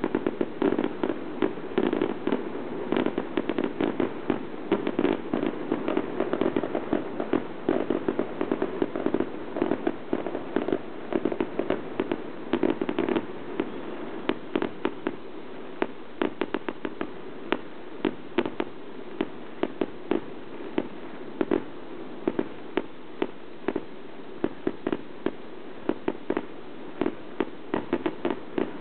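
Fireworks display: a dense, rapid string of sharp bangs and crackles, several a second, over a steady background hiss. It thins out somewhat in the second half.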